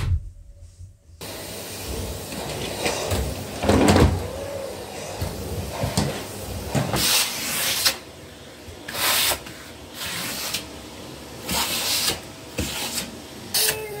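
Household cleaning: a knock, then a cloth rubbing over a painted door; later a vacuum-cleaner hose nozzle working along a mattress edge, with repeated short bursts of suction hiss.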